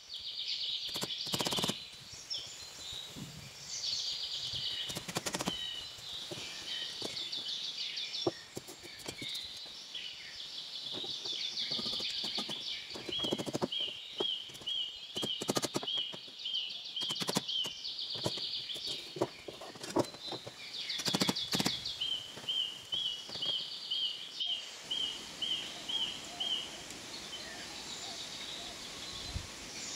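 Birds calling, with two runs of a repeated chirp at about three a second, over a steady high trilling. Sharp knocks come now and then throughout.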